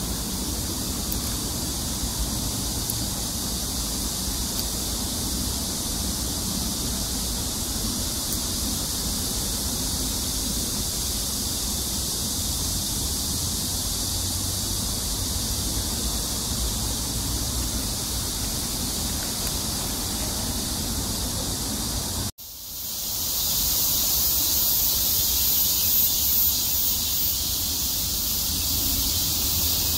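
Steady outdoor background hiss with no clear single source. About two-thirds of the way through it cuts out for an instant at an edit and returns brighter and slightly louder.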